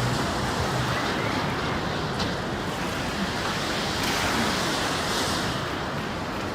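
Steady rushing noise, an even hiss with no separate events.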